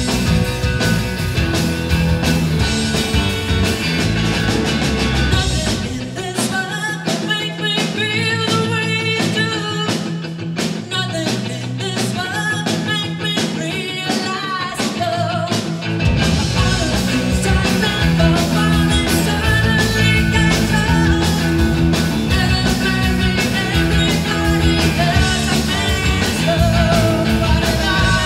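Live rock band playing: a woman singing lead over electric guitar and drums. The bass end drops away about six seconds in, leaving the voice and guitar more exposed, and the full band comes back in about ten seconds later.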